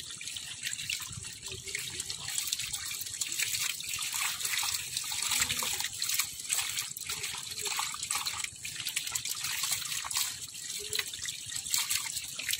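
Water running through a gap in a mud bank and splashing into a wicker basket full of small fish, with many quick splashes as a hand sweeps the water and fish in.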